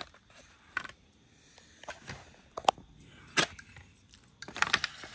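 Slotted metal serving spoon scraping and clinking against an aluminium foil pan: a few separate sharp clicks and scrapes, then a quicker run of them near the end.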